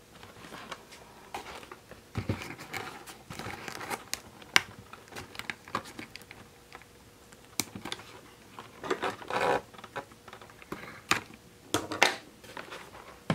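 Hands handling toy-doll packaging while freeing a tiny gold key accessory from it: crinkling and rustling with scratches and sharp clicks, the loudest click about four and a half seconds in and thicker crinkling bursts near the middle and near the end.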